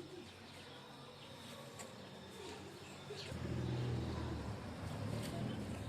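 A low engine rumble, like a motor vehicle running close by, comes in about three seconds in over a faint outdoor background.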